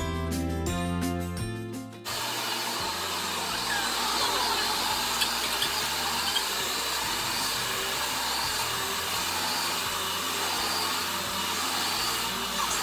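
Background music, then about two seconds in an upright vacuum cleaner starts running steadily on carpet, with the music faintly underneath.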